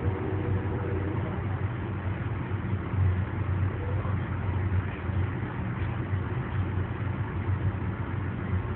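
A steady low engine rumble, as of a running vehicle, holding even throughout.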